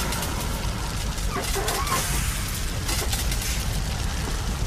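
A burning timber shed: the wood crackles and pops over the steady rush of the flames.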